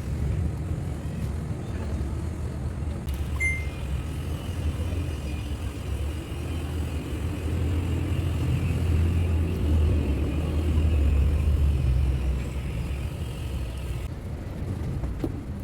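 Steady low background rumble, joined by a faint higher hum from about three seconds in until near the end.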